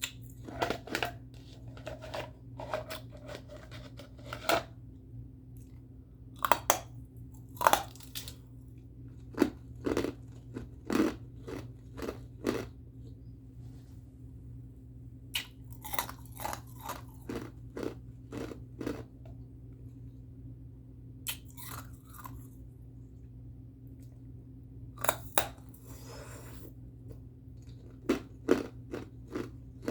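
Ice being bitten and chewed close to the microphone: loud, sharp crunches in quick clusters, with short pauses between bites. A steady low hum runs underneath.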